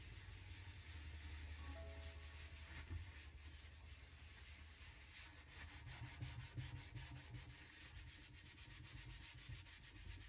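A metal scouring pad scrubbing baked-on crust off an oven floor, a scratchy rubbing in quick, even back-and-forth strokes, several a second.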